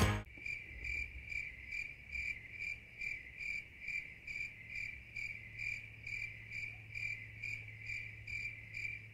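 Cricket chirping steadily, about two or three chirps a second, over a faint low hum, after music cuts off right at the start.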